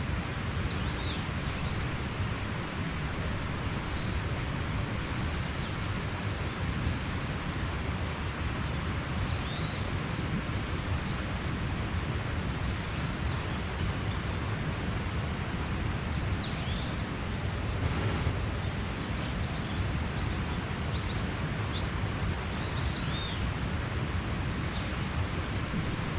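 Mountain stream rushing steadily, with a small bird giving short, high chirps every second or two over the water noise.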